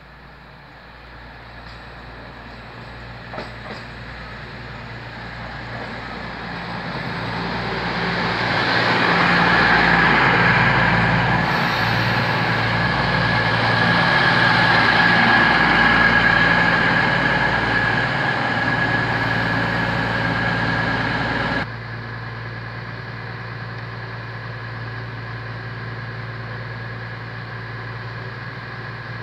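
Class 222 Meridian diesel multiple unit arriving and slowing to a stop: its underfloor diesel engines and running gear grow louder as it approaches, then stay loud with a steady high whine as it runs along the platform. About three-quarters of the way through, the whine and most of the noise cut off sharply, leaving the diesel engines idling with a steady low hum at a standstill.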